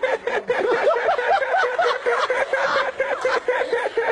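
Unbroken high-pitched laughter: rapid, even 'ha' pulses, about five a second, held without a pause for breath.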